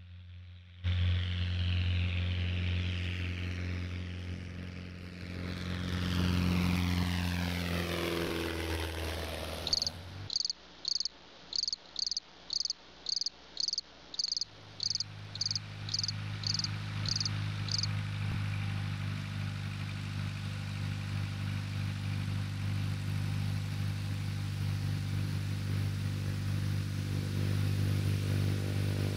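Cessna 150's Continental O-200 engine and propeller running steadily, with a falling pitch sweep about six to nine seconds in. The engine then drops out while about a dozen evenly spaced high chirps sound, and from about halfway through it runs steadily again.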